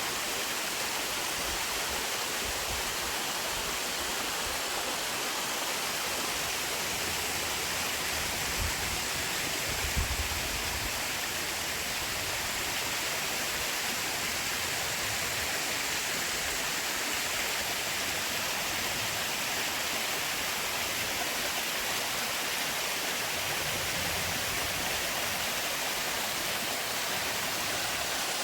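Running water in a forest stream, rushing steadily. A brief low rumble comes about nine to ten seconds in.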